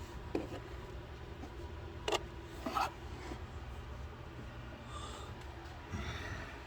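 Rubbing and scraping handling noises with a few sharp knocks, the loudest two about two and three seconds in, over a steady low hum.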